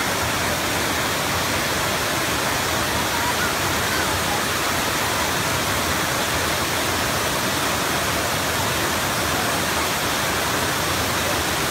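A wide, stepped waterfall rushing steadily as water pours over the rock ledges: a loud, even roar.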